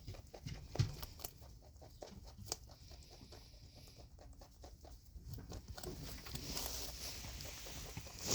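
Pet rabbit moving about: scattered light taps and clicks, with a rustling hiss that swells near the end.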